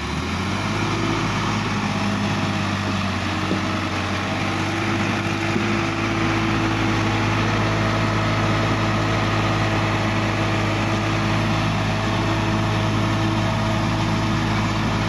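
Sonalika DI-50 RX tractor's diesel engine working under load as the tractor pushes through deep paddy-field mud. The engine note rises in the first second, then holds steady at high revs.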